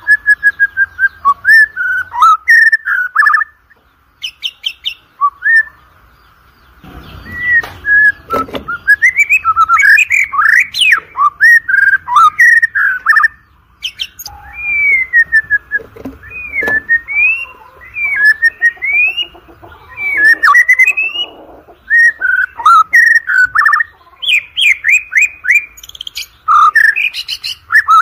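White-rumped shama (murai batu) singing: a fast, varied run of loud whistled notes sweeping up and down, in phrases broken by short pauses, with a quieter stretch a few seconds in.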